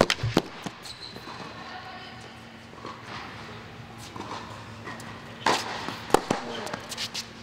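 Tennis rally on an indoor hard court: sharp pops of racket strings striking the ball and the ball bouncing. There is a cluster at the very start and several more between about five and a half and seven seconds in, echoing in the hall.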